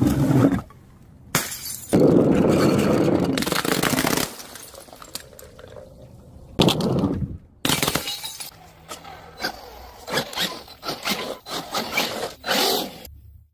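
Glass bottles breaking: several loud smashes and a long shattering crash, then a run of smaller cracks and clinking shards.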